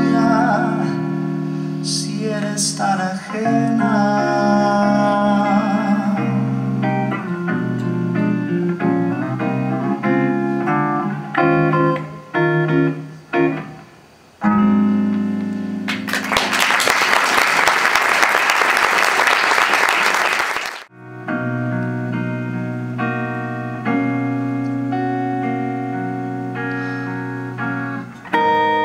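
Ibanez hollow-body electric guitar played solo, picked melody notes over ringing chords. About halfway through, a loud hiss-like rush of noise lasts about five seconds and cuts off sharply, and the guitar playing carries on after it.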